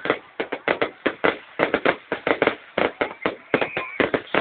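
Fireworks going off in a rapid, irregular string of sharp cracks and bangs.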